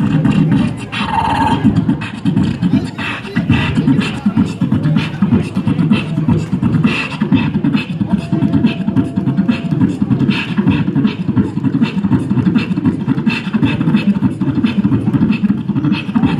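Beatboxing amplified through a microphone and PA speakers: a fast, steady beat of deep mouth-made kick drums and sharp snare- and hi-hat-like clicks.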